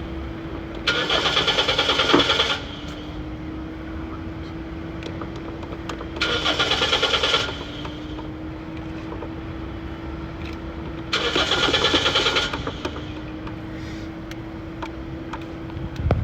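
Car starter cranking the engine three times in short bursts of about a second and a half, the engine turning over with a fast pulsing but not catching: a car that won't start. A steady whine runs underneath and dips slightly in pitch each time the starter turns.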